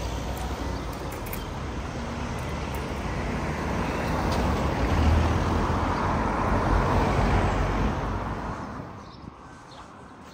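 Cars driving across a level crossing one after another: a steady road-traffic noise of engines and tyres that builds to its loudest in the middle, then drops to a much quieter background near the end.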